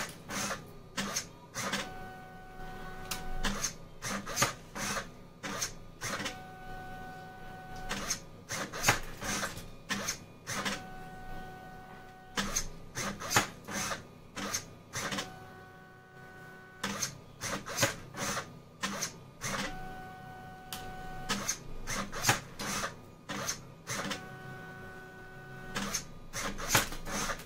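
Homemade wire-cutting machine cycling at its fastest speed. A stepper motor drives a 3D-printer extruder feed gear and whines steadily for about a second and a half as it pushes the wire through. Then a servo-driven cutter works with a quick cluster of sharp clicks, and the cycle repeats every few seconds.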